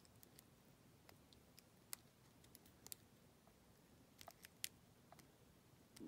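Faint, irregular metallic clicks of a lock pick working the pins inside a four-pin brass Brinks 40 mm padlock, a few scattered ticks against near silence, with a small cluster between four and five seconds in.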